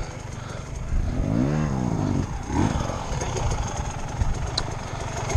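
Dirt bike engines running on a rocky hill climb, with one bike revving up and back down about a second in and a second short rev right after.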